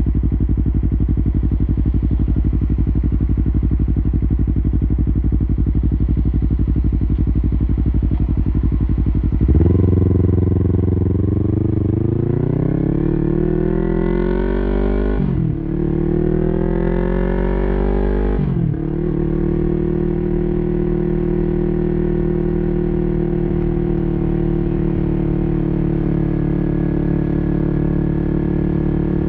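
Yamaha YZF-R3's 321 cc parallel-twin engine through an Arrow Pro-Race full exhaust system with no muffler, running steadily at low revs, then accelerating hard about nine seconds in. The revs rise and drop at two upshifts, then hold a steady note while cruising.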